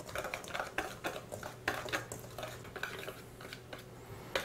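A utensil scraping and clicking irregularly against a stainless steel mixing bowl as a dry mix of almond flour, cinnamon, baking soda and salt is stirred together.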